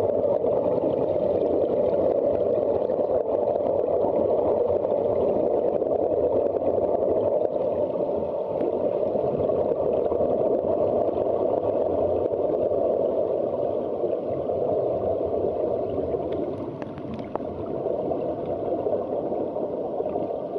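Steady, muffled underwater rush and gurgle of air bubbles streaming from surface-supplied Sea Trek diving helmets, heard underwater.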